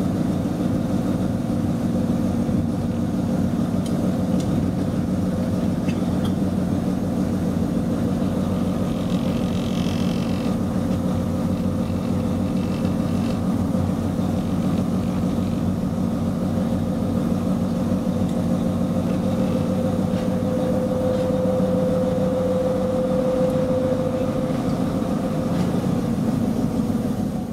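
Small diesel shunting locomotive's engine running steadily with a low, even drone while the locomotive moves slowly, heard from inside its cab.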